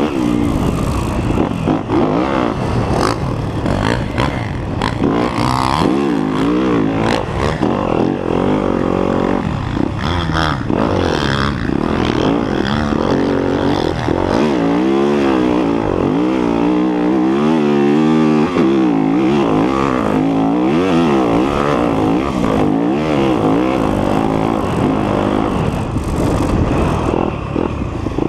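A 2019 Yamaha YZ250F's single-cylinder four-stroke engine, heard up close from the handlebars, revving up and falling back again and again as the bike accelerates, shifts and slows over the track.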